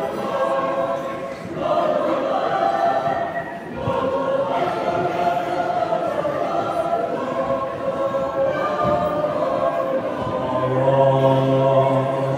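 Mixed choir singing in sustained phrases with brief breaks between them, ending on a low held note.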